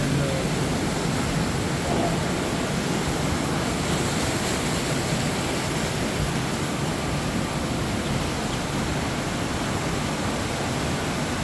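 Steady rush of water pouring through an opening lock gate as the lock chamber empties to the lower level.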